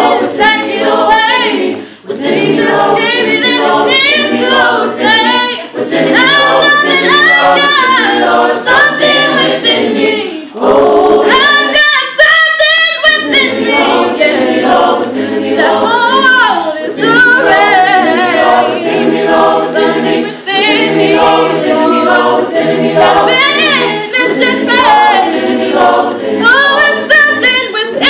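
Choir of mixed voices singing a cappella, holding sustained chords under a female lead singer with vibrato. About halfway through, the lower voices drop out briefly and leave the lead almost alone.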